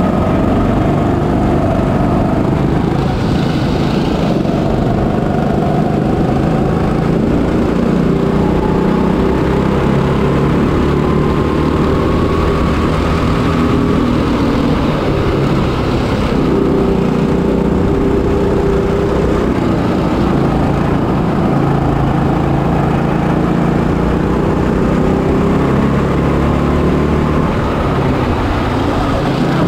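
Onboard sound of a Kombikart Eco rental kart's 200cc, 6.5 HP Honda GX200 single-cylinder four-stroke engine running under load, its pitch slowly rising and falling as the kart speeds up on the straights and slows for the corners.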